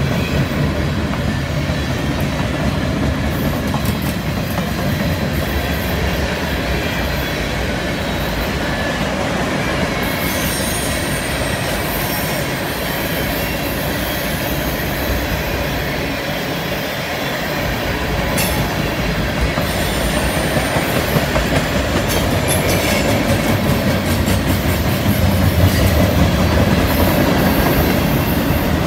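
Freight cars of a long train rolling past on a curve: a steady rumble and clatter of steel wheels on rail, with a thin high-pitched wheel squeal from the flanges grinding on the curved rail coming in at times.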